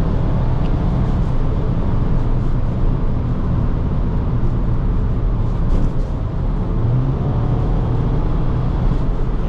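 Engine and road noise inside the cabin of a moving 2018 Skoda Octavia vRS 230, its 2.0-litre turbocharged petrol engine running steadily under way, with a brief dip in level about six seconds in.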